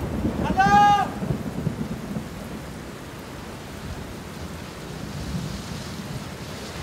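Steady rain with low rumbling thunder. Just under a second in, a single short, high-pitched call rises and falls over it.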